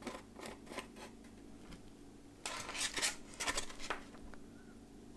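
Rhythmic scraping strokes of a hand tool working the cut edge of a polystyrene foam block, about three strokes a second. They fade briefly, then come back louder for a second or so about halfway through.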